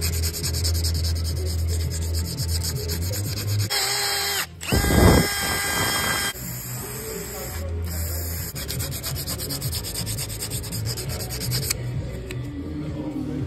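Cordless drill spinning an abrasive wheel against the bore of a GMC CCKW brake wheel cylinder held in a vise, scouring the corroded bore clean. The rubbing breaks off briefly about four and a half seconds in and fades to a lower rumble near the end.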